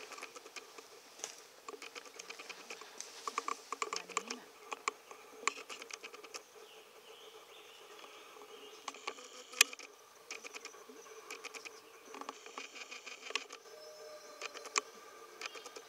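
Dry leaf litter and wood chips crackling and rustling in irregular patters under wolf cubs' paws as they scamper about, with one sharper click about ten seconds in.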